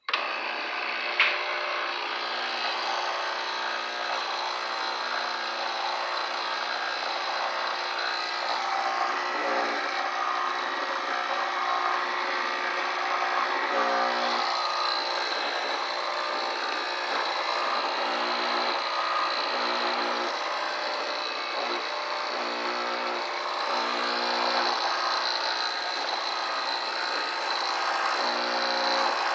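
MasterChef manual espresso machine's pump running with a steady, raspy buzz, with a single click about a second in. No coffee comes out of the spouts while it runs: the machine is not delivering.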